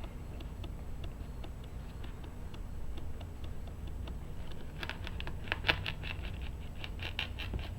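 Knife cutting through a sand dab's fin bones: a run of small crunching clicks, sparse at first and coming thick and fast over the last few seconds.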